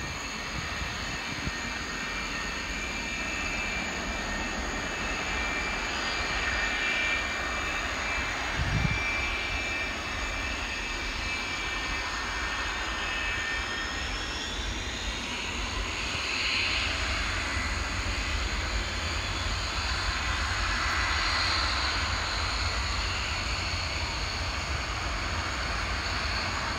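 An IAI Kfir C.2's General Electric J79-J1E turbojet running on the ground: a steady rushing jet noise with thin high whistling tones that fade out about halfway through, the noise swelling a little in the second half. A short low thump about nine seconds in.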